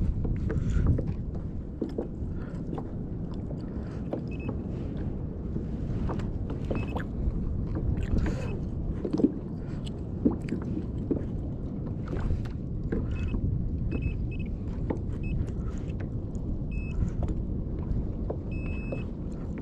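Wind rumbling on the microphone and water sloshing against a fishing kayak's hull, with frequent small knocks and clicks and a few short high chirps scattered through.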